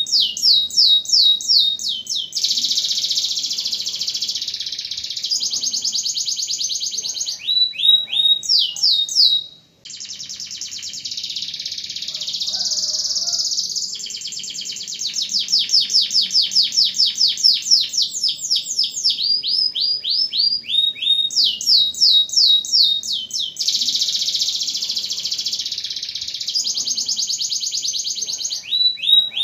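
Domestic canary in full song: fast trills of repeated down-sweeping notes alternating with dense, rolling passages. The song breaks off briefly once, about nine seconds in.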